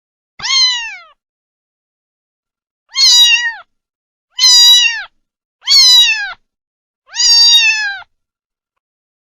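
Kitten meowing: five high-pitched meows, each rising briefly then falling in pitch, at about one-second gaps, the last one a little longer.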